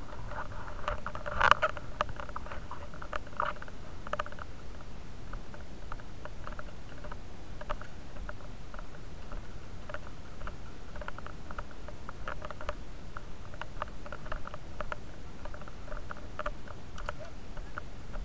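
Scattered small clicks and rustles of a body-worn action camera rubbing and knocking against the wearer's clothing and gear as he moves, with a sharper knock about a second and a half in.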